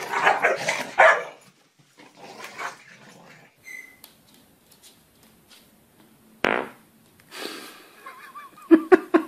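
A dog growling and barking in short outbursts: a loud rough growl at the start, a sharp sudden sound partway through, and a quick run of short barks near the end.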